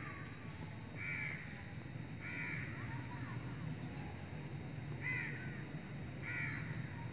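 A bird giving four short, harsh calls spaced one to three seconds apart, over a low, steady background noise.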